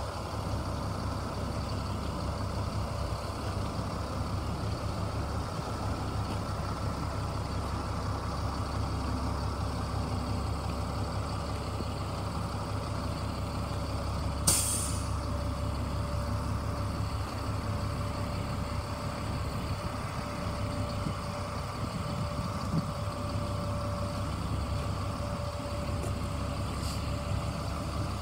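A 1999 GMC C7500 grain truck's engine running steadily at low speed as the truck creeps across the yard, a constant low drone. About halfway through, a short sharp hiss of air from its air brakes.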